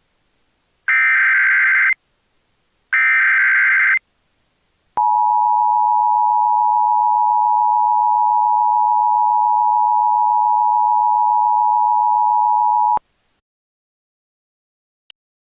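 Emergency Alert System tones: two loud, buzzy bursts of SAME header data, each about a second long and a second apart. About a second after the second burst comes the steady two-tone EAS attention signal, held for about eight seconds before it cuts off sharply. A faint click follows near the end.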